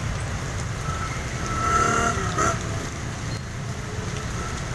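Steady heavy rain with cars driving past on a wet street. One vehicle passes loudest about two seconds in.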